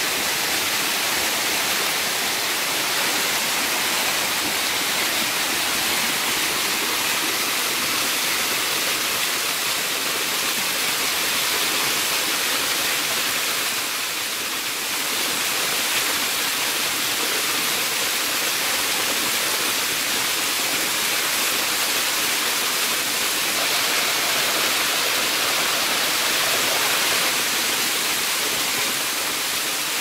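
Waterfall cascading down shallow tiers of rough limestone rock, a steady rushing of water.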